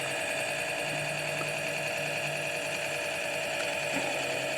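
Memphis Echo ME-8 tape delay running, its small motor turning the 8-track tape loop through a rubber band fitted as a replacement drive belt: a steady whir with several constant tones. The belt, formerly too loose to turn the weighted capstan, now drives the transport.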